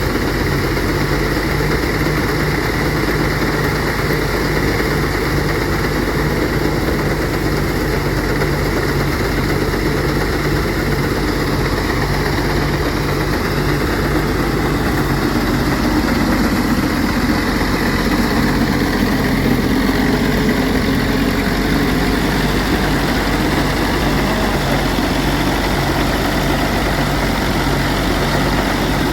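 Engine of a rice threshing machine running steadily during threshing.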